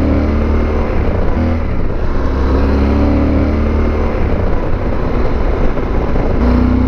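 Yamaha Super Tenere's parallel-twin engine running steadily while the bike is ridden, its note climbing a little a couple of times with the throttle.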